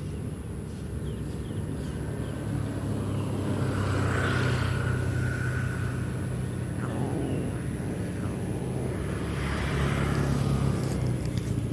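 Low, steady engine hum of a motor vehicle, growing louder about four seconds in and again near the end.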